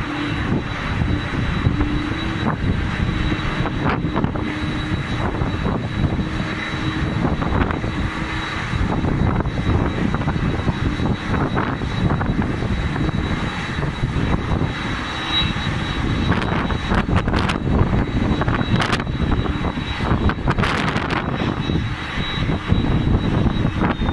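Jet airliner noise across an airport apron: a steady high whine over a continuous low rumble, with wind buffeting the microphone.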